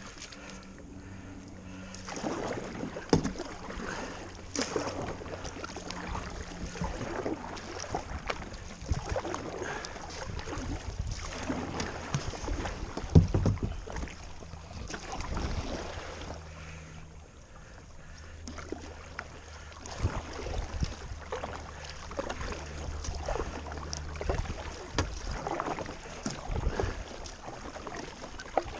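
Kayak paddling: paddle blades dipping and splashing in the water at an uneven pace, with occasional sharp knocks, the loudest about three seconds and about thirteen seconds in.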